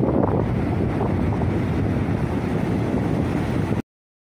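Wind buffeting the microphone over the steady wash of sea surf on a beach. It cuts off abruptly near the end.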